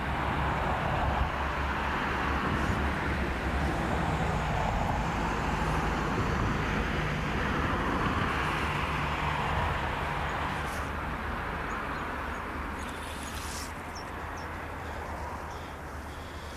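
Steady rumble of motor traffic that slowly fades over the last several seconds.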